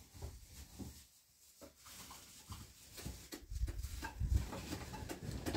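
Faint scattered clicks, rustling and soft low thumps of people moving about and handling household things.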